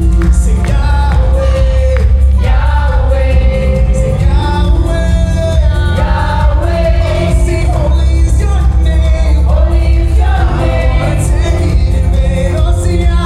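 Live worship band playing with singers, a heavy steady bass under sung vocal lines.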